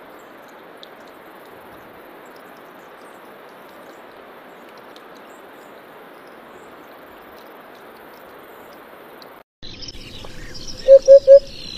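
A steady faint hiss that cuts off suddenly, then a Eurasian hoopoe giving its low three-note 'oop-oop-oop' call once near the end, over high chirps of other birds.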